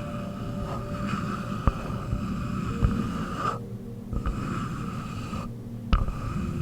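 A few sparse, sharp taps on wood, three of them standing out, over a steady background hiss that drops out briefly twice.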